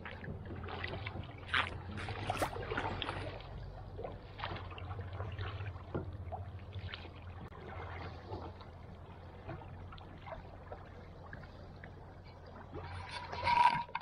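Kayak paddle strokes dipping and splashing in the water at an irregular pace, over a steady low hum. A brief louder sound comes near the end.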